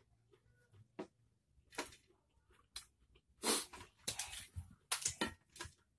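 Short, scattered crackles and snaps of raw green vegetable stalks being torn and stripped by hand, with light taps on a metal tray. There are a few in the first half, and they come closer together after about three and a half seconds.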